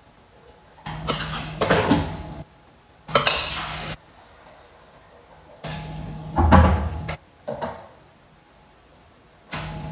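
Metal spoon clinking and scraping against a stainless steel bowl of bun filling, in several short spells of a second or so with quiet gaps between.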